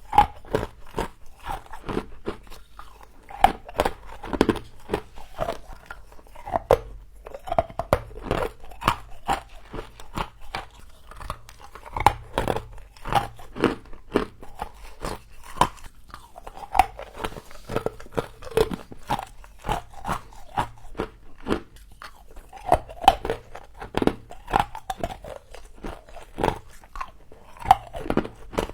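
A person biting and chewing mouthfuls of frost close to the microphone: crisp, crackly crunches coming several times a second.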